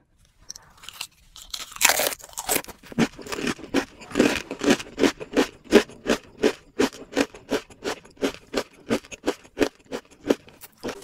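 A Paqui One Chip Challenge tortilla chip being bitten and chewed close to the microphone: a loud crunchy bite about two seconds in, then a steady run of crisp crunching chews, about three a second.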